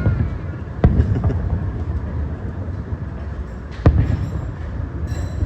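Fireworks shells bursting: sharp bangs at the start, two about a second in, and another near four seconds, over a steady low rumble.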